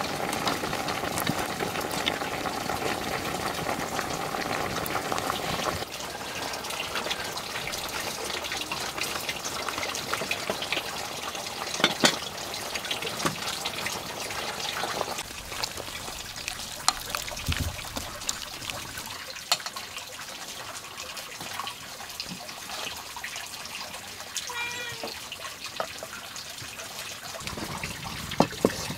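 Cooking over a wood fire: a steady hiss, louder for the first several seconds, with scattered crackles and pops from the burning wood. A short animal call is heard about three-quarters of the way through.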